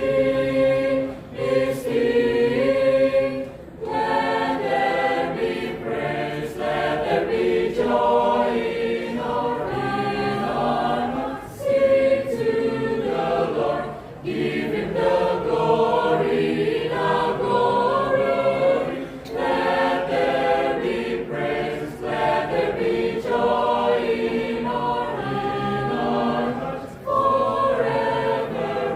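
Church choir singing in several parts, its phrases separated by short pauses every few seconds.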